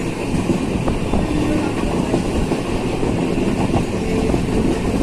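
Steady rumbling noise of a moving vehicle.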